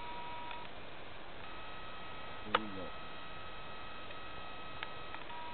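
Faint, steady high whine of the Parkzone Spitfire's electric motor and propeller in flight, shifting pitch a couple of times as the throttle changes. A sharp click about halfway through, followed by a short low sound.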